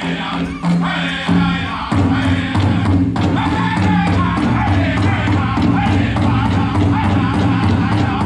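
Powwow drum group singing a chicken dance song: voices chanting together over steady beats on a large drum, the drumming growing fuller about two seconds in.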